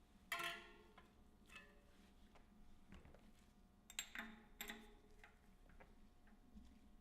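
A handful of light metal-on-metal taps, each ringing briefly, the loudest near the start and two close together about four seconds in: tools working a bearing extractor to drive a sealed bearing out of a bicycle front hub shell.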